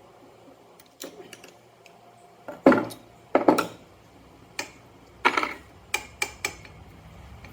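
A string of irregular clicks and knocks from hand tools working on a Stihl FS38 trimmer's housing as its bolts are tightened back in, the two loudest a little under three seconds in.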